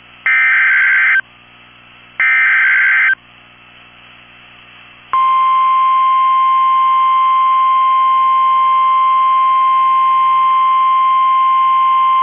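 Emergency Alert System SAME header data bursts: two short, shrill, warbling digital squawks about a second apart. A couple of seconds later the steady 1050 Hz National Weather Service alert tone starts and holds. Together they are the attention signal that opens a new weather warning broadcast.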